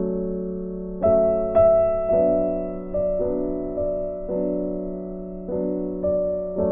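Background music: a gentle piano-style keyboard tune, with single notes struck about once a second over held chords.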